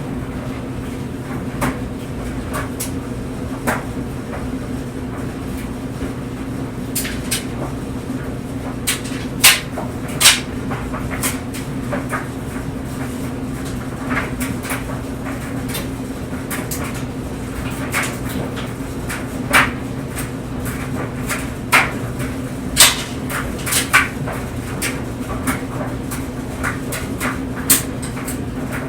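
Clothes dryer running with clothes tumbling in the drum: a steady hum under irregular clicks and knocks from the tumbling load, a handful of them louder.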